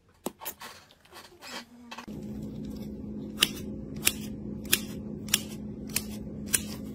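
Scissors snipping through thick strands of red slime, a sharp snip about every two-thirds of a second over a steady low hum. The first couple of seconds hold only a few faint clicks.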